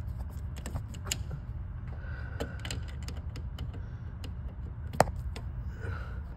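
Screwdriver working the wire terminal screws of a three-phase bolt-in breaker in a metal breaker panel: scattered small metallic clicks and scrapes, with one sharp, louder click about five seconds in, over a steady low hum.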